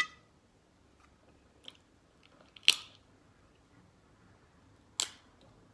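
Shellfish shell cracking and snapping as it is broken apart by hand, four sharp cracks with the loudest about halfway through.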